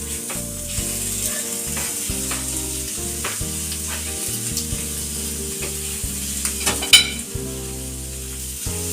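Small pieces of chicken sizzling as they fry in a pan, with stirring. A single sharp knock about seven seconds in.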